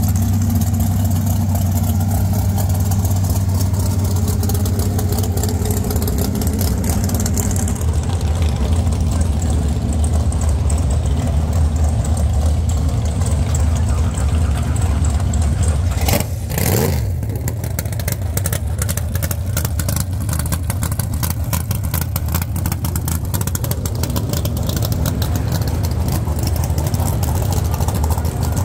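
Drag race cars idling together with a steady low rumble, broken by a brief loud burst of noise a little past halfway.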